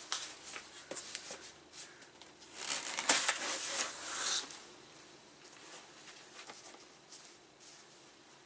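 Plastic bag around a computer logic board rustling and crinkling as it is handled. The loudest burst comes about three seconds in, with scattered light taps and clicks.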